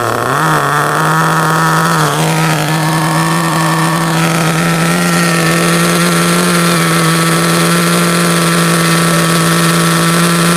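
Small two-stroke nitro engine of an RC car idling steadily at a high, even pitch that dips and recovers right at the start. It is being run in on its first break-in tank.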